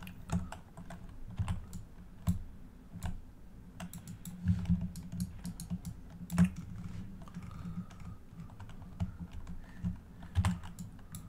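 Computer keyboard keys pressed at an irregular pace, each press a sharp click with a dull thud, sometimes several in quick succession.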